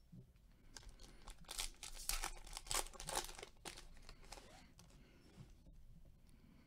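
Foil wrapper of a trading card pack crinkling and tearing as it is opened by hand: a run of crackles, strongest between about one and four seconds in, then fainter rustling of the cards being handled.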